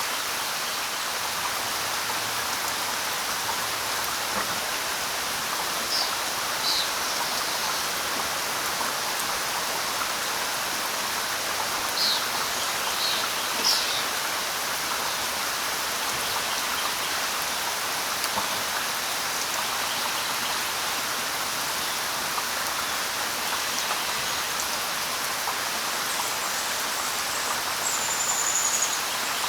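Light rain falling steadily on leaves, with a few short high bird chirps, twice in the first half and a brief high whistle near the end.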